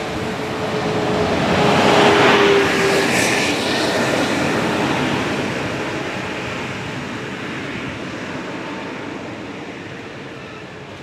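A bus driving past close by: its noise swells to a peak about two seconds in, with a steady hum that dips slightly in pitch and stops soon after, then fades away slowly.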